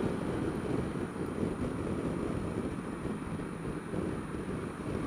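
Steady wind rush over the microphone of a camera on a Honda Dio scooter riding along a road, with the scooter's running noise underneath.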